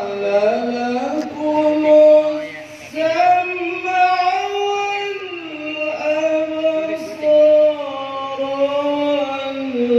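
A man's voice reciting the Quran in the melodic tilawah style, drawing out long ornamented notes that glide up and down in pitch, with short breaths between phrases.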